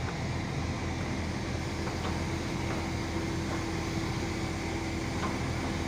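Mobile crane's diesel engine running steadily under load as it hoists a bundle of steel reinforcing bars, with a steady hum coming in about halfway through.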